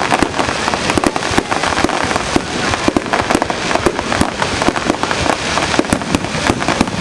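Fireworks going off in quick succession: a dense run of sharp cracks and pops, many each second, over a steady rushing background.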